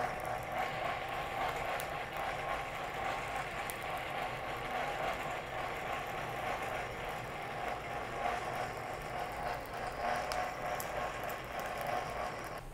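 Hand-cranked blower on an old Champion coal forge whirring steadily as it is turned, with a gear rattle, forcing air into the coal fire to bring the rebar up to heat.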